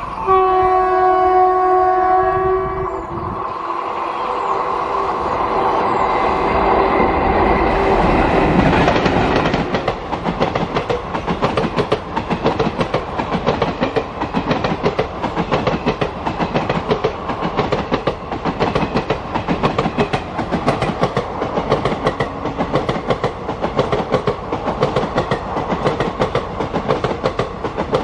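WAP-4 electric locomotive blowing its horn in one blast of about three seconds as it approaches, then the express rushing past close by. Its passenger coaches clatter rhythmically as the wheels cross the rail joints.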